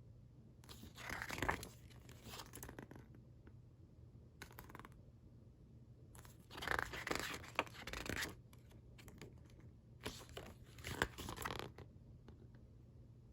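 A CD's packaging being torn and crinkled open by hand, in three bursts of tearing of a second or two each, with sharp crackles in them.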